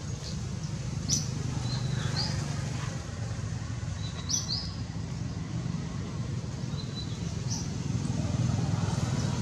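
A few short, high bird chirps and brief whistled notes, scattered over a steady low rumble.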